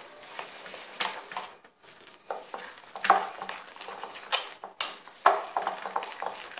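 Thick ground urad dal batter being stirred and worked in a glass bowl to mix in freshly added semolina: irregular wet scrapes with sharper knocks against the glass, a handful standing out louder than the rest.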